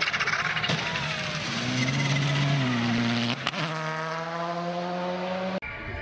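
Volkswagen Polo GTI R5 rally car's turbocharged four-cylinder engine at high revs as it flies over a crest, its pitch dropping and rising again with throttle and gear changes. A sharp crack comes about three and a half seconds in, then the engine pulls away with a steadily rising note. It cuts off abruptly near the end.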